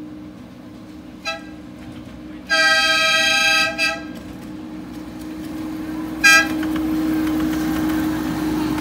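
Miniature railway locomotive sounding its horn: a short toot, a long toot, then another short toot. Under the toots runs a steady low hum that grows louder in the second half.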